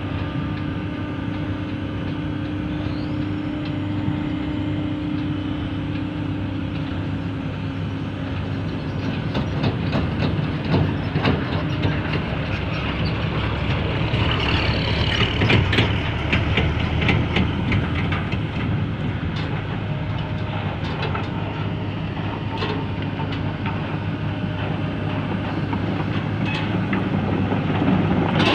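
A tracked heavy machine on the move: its diesel engine running steadily under the clank and rattle of steel crawler tracks. The clanking thickens and grows louder partway through.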